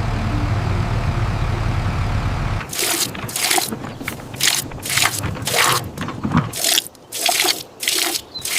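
A cartoon mini tractor's engine running with a low steady rumble, cutting off about two and a half seconds in. It is followed by a run of short scraping, crunching strokes, roughly two a second.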